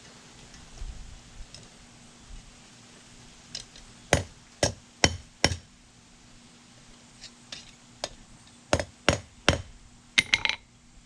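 Hammer striking hot steel on an anvil, straightening a twisted forged tine: a run of four sharp blows about half a second apart, a few lighter taps, then three more blows and a quick clattering, ringing bounce of the hammer near the end. A faint steady hum underlies it.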